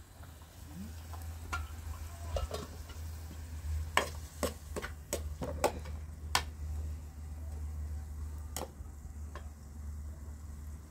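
A metal ladle stirring chopped onions in a metal pan over a wood fire, clinking sharply against the pan's sides: a few scattered knocks, a quick run of about six in the middle, and one more near the end, over a steady low rumble.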